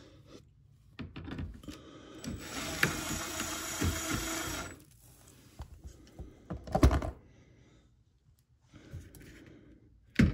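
A small electric motor runs steadily for about two and a half seconds, followed by scattered knocks and a loud low clunk of hard parts being handled, with another sharp knock near the end.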